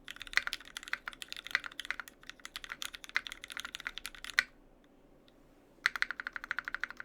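Typing on a mechanical keyboard with lubed linear Cherry MX Black switches in a stainless steel plate and GMK keycaps: a steady patter of keystrokes ending in one louder click, a short pause, then a fast, even run of keystrokes near the end.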